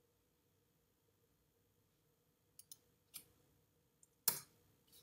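Computer mouse clicks: a quick double click about two and a half seconds in, a single click, then a louder click near the end.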